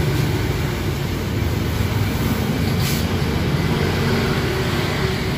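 Steady low rumble of road traffic passing close by, with a brief hiss about three seconds in.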